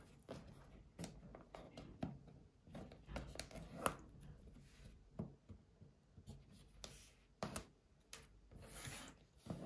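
Paper tear-strip seals being pulled off a sealed iPhone 13 mini box: faint scratching and ripping of paper with light clicks of the cardboard box, and a longer rip near the end.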